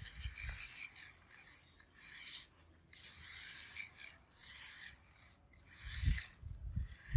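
Irregular rasping scrapes, roughly two a second, with a couple of low thumps near the end.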